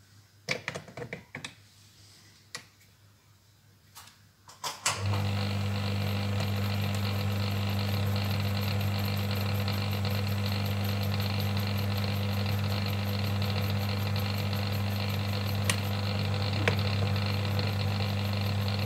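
A few light clicks and knocks as a brass cartridge case is fitted into a homemade electric case trimmer. About five seconds in, the trimmer's electric motor switches on suddenly and runs with a steady mains hum, spinning the cutter to trim the case to length.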